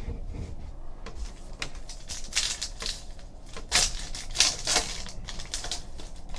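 Trading cards being handled and slid past one another: irregular soft clicks and swishes of card stock, with a few louder swishes in the second half.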